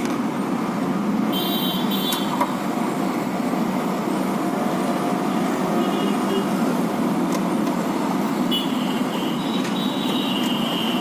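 Steady low rumbling background noise, like street traffic, with a few brief high-pitched tones about a second in and again in the last couple of seconds.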